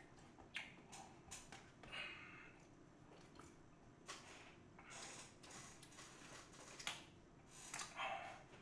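Faint eating sounds: a plastic spoon clicking against a plastic tub of steamed egg, with soft chewing between the clicks. Near the end comes a short knock as the tub is set down on the table.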